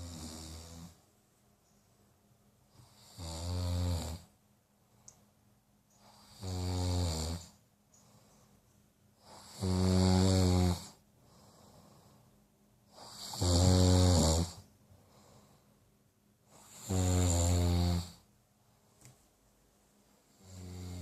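A sleeping person snoring heavily and regularly, one snore about every three and a half seconds, each about a second long with a buzzing tone; the snores in the middle are the loudest.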